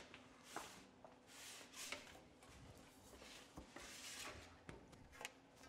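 Faint handling sounds of a wooden pizza peel taking a pizza out of a deck oven: a few soft scrapes and swishes with several light knocks and clicks.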